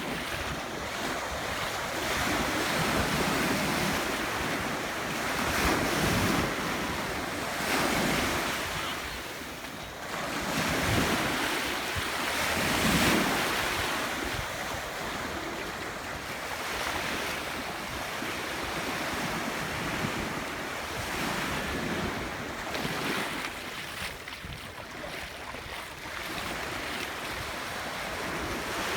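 Ocean surf breaking on a sandy beach, the wash swelling and fading every few seconds, with wind buffeting the microphone.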